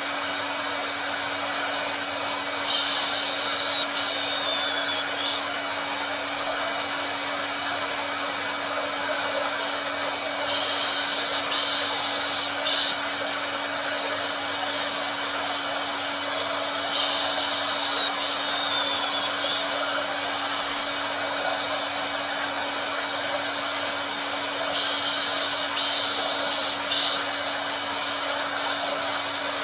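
Hair dryer (blow dryer) running continuously: a steady airy hiss with a constant motor hum. A brighter, higher hiss swells briefly about every seven or eight seconds.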